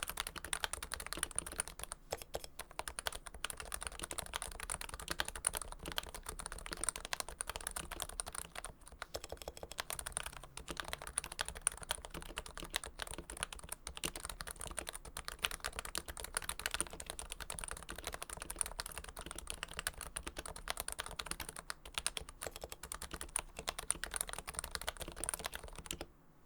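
Fast, continuous typing on a Realforce keyboard with Topre switches lubed with Krytox 105, fitted with a Hipro plate in a first-generation Realforce TKL case. There is a brief lull about nine seconds in, and the typing stops just before the end.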